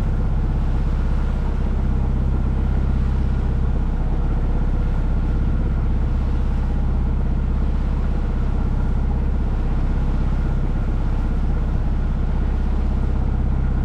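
Sailboat's engine running steadily at low revs, a deep even drone.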